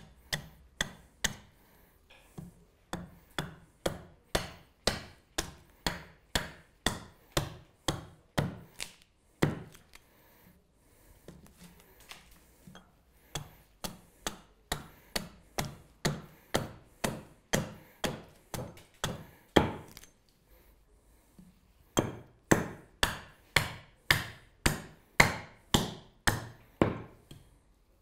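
Carving axe chopping into a green alder spoon blank held on a wooden chopping block: a steady run of sharp chops about two a second, pausing briefly twice.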